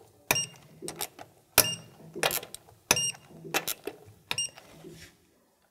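Click-type torque wrench on the wheel's lug nuts, ratcheting and then giving a sharp metallic click each time it reaches its set 100 foot-pounds, four times about a second and a half apart.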